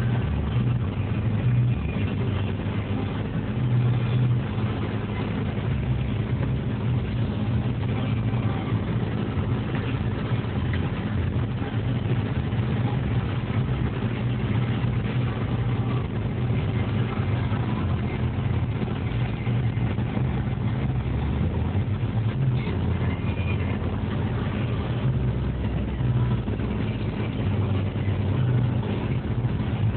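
Steady low drone of a car's engine and road noise, heard from inside the moving car.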